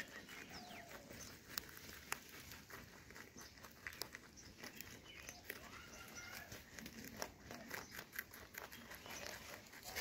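Rabbits chewing raw carrots and carrot tops: a faint, irregular run of quick crisp crunching clicks.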